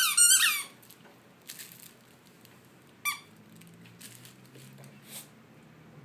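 Puppies at play with high squeaks: a quick run of loud, falling squeaks in the first second, then one more about three seconds in, with a few faint short huffs between.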